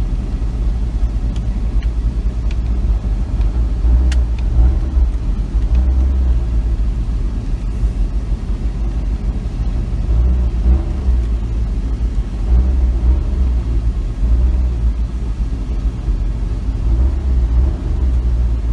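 Low, steady engine and road rumble of a vehicle driving slowly, heard from inside the cabin, with a sharp click about four seconds in.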